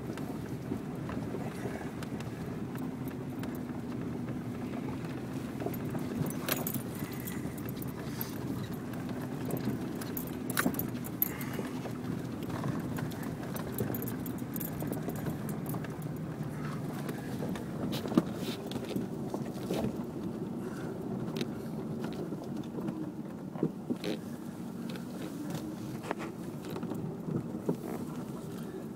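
Ford Ranger FX4 pickup's engine running under load while climbing a rough dirt trail, heard from inside the cab, its pitch rising and falling slightly. Frequent sharp clicks and rattles run throughout.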